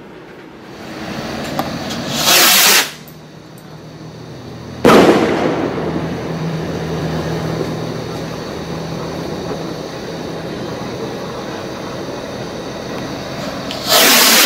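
Funke Sternflocken firework rocket launching: a hiss builds and ends in a brief loud whoosh, then a sharp bang about five seconds in as it bursts, trailing off into a long fading noise. Near the end the next rocket launches with another loud whoosh.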